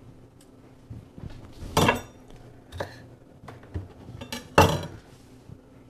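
Kitchen handling sounds: a series of sharp knocks and clinks on a countertop as a chef's knife and utensils are handled. The two loudest, each with a brief ring, come about two seconds in and just before the end.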